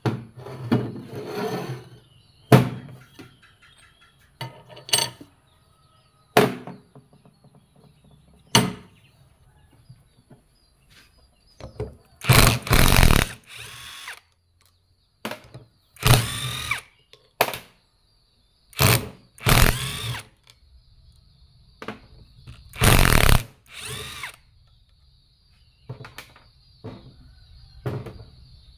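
A few sharp metal knocks, then a cordless impact wrench running in four bursts of one to two seconds each, its whir rising and falling as it undoes the bolts of a small gearbox housing. A few lighter knocks follow near the end.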